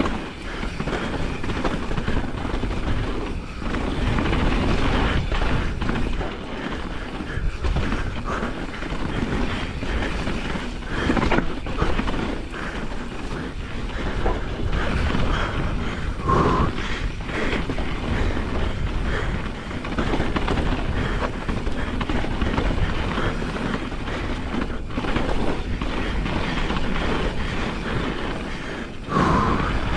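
Pivot Firebird enduro mountain bike riding fast down a dirt singletrack, heard from a chin-mounted action camera: a steady rush of wind on the microphone over the rumble and rattle of tyres and bike on rough ground, swelling and easing with the terrain, with a few brief sharper knocks along the way.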